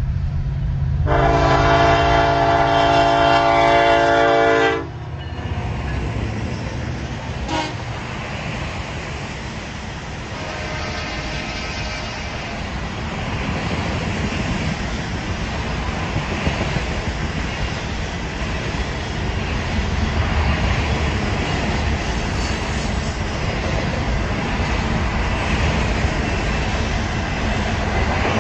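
Freight locomotive horn sounding one long loud blast of about four seconds over the diesel's rumble, cutting off sharply, then a shorter, fainter blast about ten seconds in. After that comes the steady rumble and clatter of a long string of flatcars loaded with continuous welded rail rolling past.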